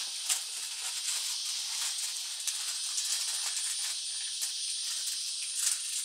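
Steady high-pitched hiss with a few faint clicks.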